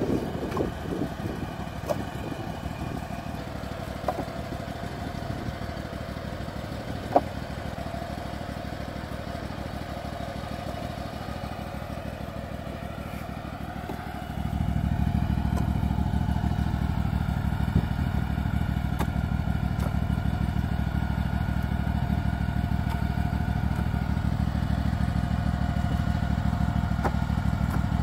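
Zero-turn mower engine idling steadily, louder in the second half, with a few sharp knocks of split firewood being set down on a stacking rack.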